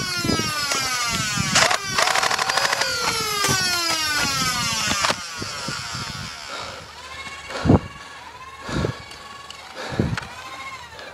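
Motorised Nerf blaster flywheels whining and spinning down, several at once, each whine falling in pitch. After about five seconds it gets quieter, with short revs and three sharp knocks about a second apart.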